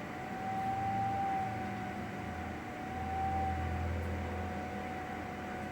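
Combination microwave oven running its popcorn program in the sensing stage: a steady hum with a thin, slightly wavering high tone over it, no kernels popping yet.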